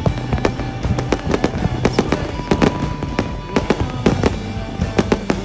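Fireworks and firecrackers going off in quick succession, a steady run of sharp bangs and crackling pops several times a second, with music in the background.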